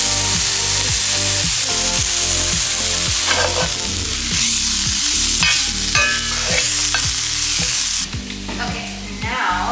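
Ground turkey and diced vegetables sizzling in a cast-iron skillet while a spatula stirs and scrapes them; the sizzle drops off suddenly about eight seconds in.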